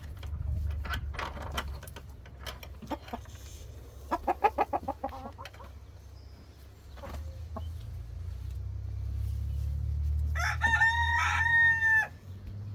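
Chickens clucking, with a quick run of clucks about four seconds in, then a rooster crowing for nearly two seconds near the end. A steady low rumble runs underneath.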